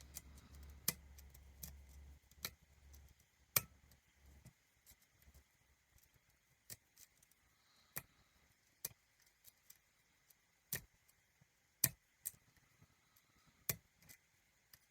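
Small sharp metallic clicks, irregular and about one a second, from a lock pick and tension wrench working the pins of a pin-tumbler challenge lock as it is picked in the opposite direction.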